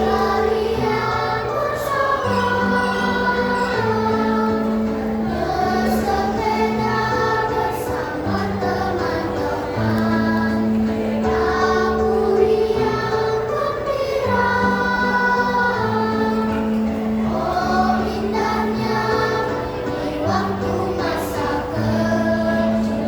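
A choir singing a song in harmony over an accompaniment of held bass notes that change pitch every second or two.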